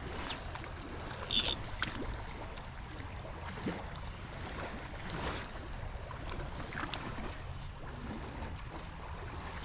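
Steady wash of a shallow river running over a gravel riffle, with a low rumble underneath; a brief sharp hiss about a second and a half in.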